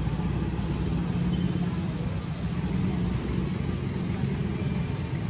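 Slow town-street traffic: car and motorcycle engines running as a steady low rumble.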